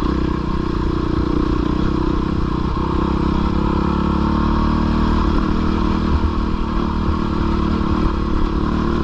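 Dirt bike engine running at steady, low revs while the bike is ridden up a trail.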